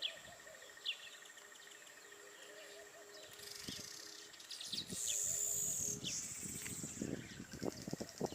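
Weaver birds calling: short, falling chirps at intervals, with a louder, longer high buzzy call about five seconds in. Soft rustling joins in the second half.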